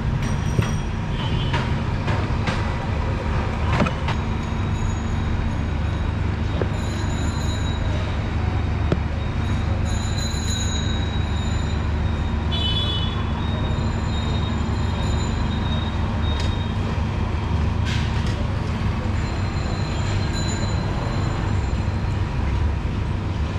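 Steady street traffic noise, with a few sharp taps of a knife against a wooden cutting board.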